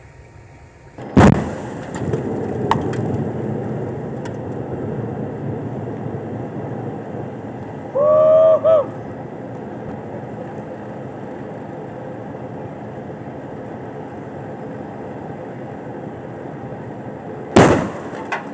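Two loud explosion blasts from a gasoline- and spray-paint-filled washing machine, one about a second in and one near the end. Between them a steady rushing noise, with a brief pitched tone in two short parts near the middle.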